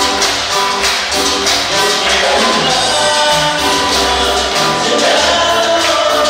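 Live church praise music: a choir singing with a band, a tambourine and congregational hand-clapping keeping a steady beat.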